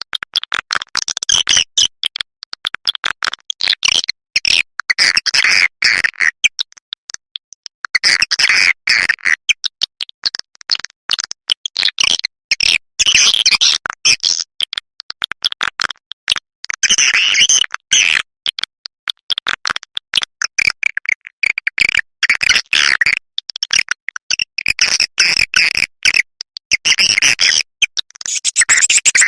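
Swiftlet call recording played back as a lure for swiftlets: rapid trains of clicks and high twittering chirps in phrases of a few seconds, with a short break about seven seconds in.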